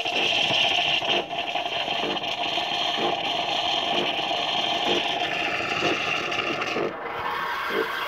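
Anko semi-automatic espresso machine's built-in milk frother running in cappuccino mode: a steady hiss of steam frothing milk drawn from the attached jug and spouting it into the cup, with a soft pulse about once a second.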